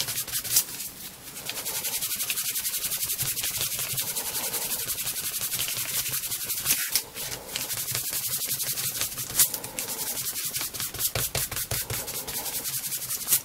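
Cloth pad rubbed quickly back and forth over the flesh side of chrome-tanned leather, buffing a cream finish into the nap. The scrubbing is rhythmic and even, with a short break about seven seconds in.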